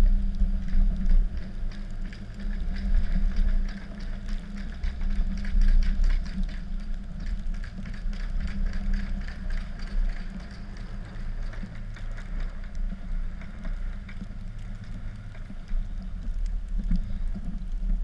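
Dodge Cummins inline-six turbo diesel truck engine running steadily under plowing load, a low hum with a light clatter on top.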